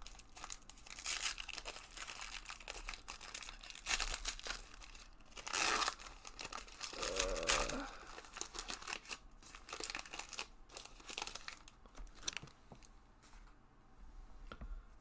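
Foil wrapper of a pack of football trading cards crinkling and tearing as it is ripped open and the cards are slid out. Near the end this thins to softer, scattered rustles as the cards are handled.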